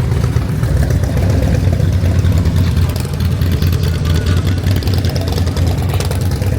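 Steady low rumble of a car driving, with road and wind noise loud on the microphone.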